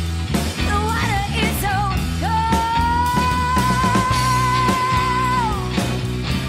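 Rock song with a full band and singing; a long, wavering high note is held from about two seconds in and slides down near the end.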